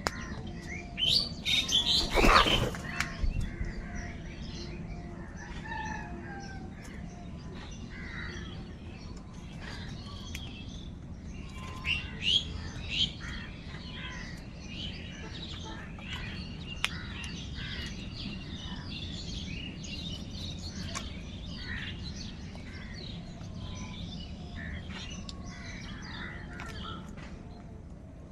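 Crows calling among many smaller birds chirping, with the loudest bursts of calls in the first three seconds and again around twelve seconds in.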